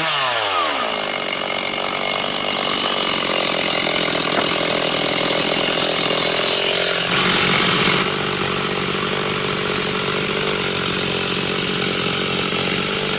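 Stihl 360 two-stroke chainsaw winding down from full throttle to idle in the first second as the throttle is let off, then idling steadily. It briefly gets louder about seven seconds in.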